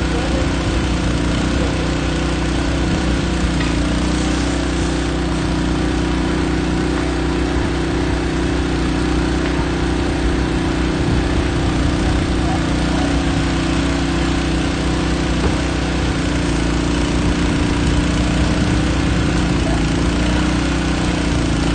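Portable trash pump's small engine running steadily at a constant pitch, pumping water from a swimming pool into fire hose lines.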